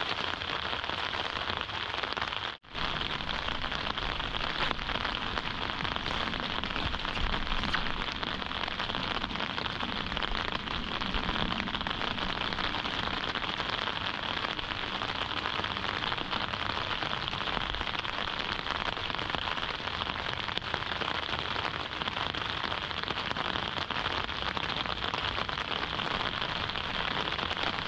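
Steady rain falling, an even hiss of drops with a momentary break about three seconds in.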